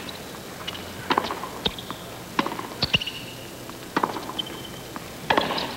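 Tennis rally: sharp pops of the ball struck by racquets alternate with ball bounces on the hard court, one every half second to second and a half. A few short high squeaks come in between.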